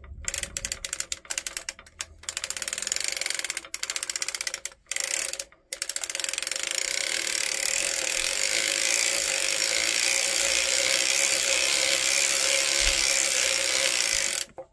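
Erlbacher Gearhart Speedster circular sock knitting machine being hand-cranked, its needles clattering rapidly through the cam as it knits rows of waste yarn. It starts and stops a few times at first, then runs steadily for the second half and stops suddenly near the end.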